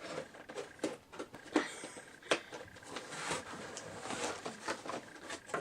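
A cardboard subscription box being opened by hand: rustling and handling of the packaging, with several sharp clicks and taps.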